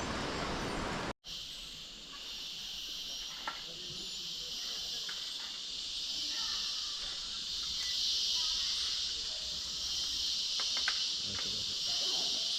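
Insects calling in a dense, continuous chorus: a steady high-pitched hiss that swells and eases slowly. For about the first second a broad rushing noise plays instead, and it cuts off abruptly.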